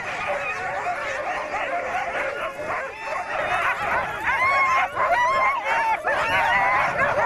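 A pack of harnessed huskies barking and yelping all at once in a dense, unbroken chorus that grows louder about four seconds in. It is the excited clamour that sled dogs make while they wait to be let run.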